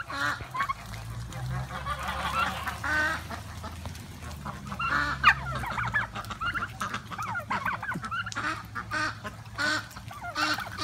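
A flock of domestic turkeys and ducks calling over and over, with short wavering calls following one another throughout.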